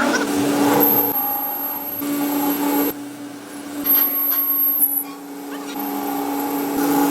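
Electric power tool running with a steady hum and a thin high whine, with some scraping or rasping, cut into several short clips that change abruptly every second or two.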